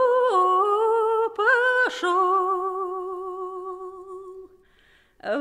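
Russian folk song sung by a lone woman's voice without accompaniment, holding long notes with a slight waver. The last note fades out about four and a half seconds in, and after a brief pause the next line begins near the end.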